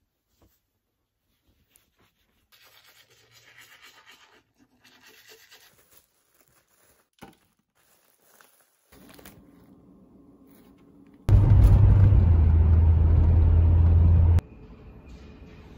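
Faint, brief scratching and rustling, then a steady hum. About halfway through comes a loud low rumble of a car driving, heard from inside the cabin, which cuts off suddenly after about three seconds.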